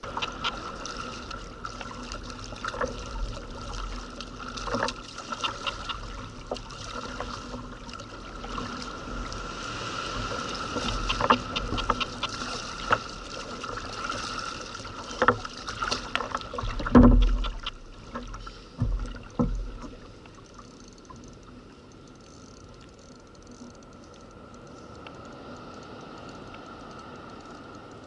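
Double-bladed paddle strokes splashing water beside a sit-on-top kayak, with scattered knocks and thumps from the paddle and hull. The loudest thump comes about seventeen seconds in. After about twenty seconds the paddling stops and only quieter water sound remains.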